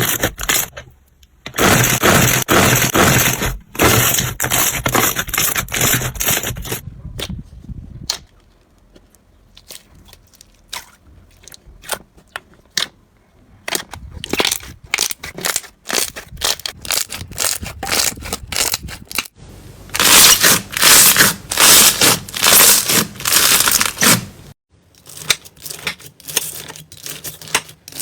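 Slime being squeezed, pressed and poked by hand, giving quick runs of crackling, popping clicks in bursts, with abrupt shifts in the sound every few seconds as one clip gives way to the next.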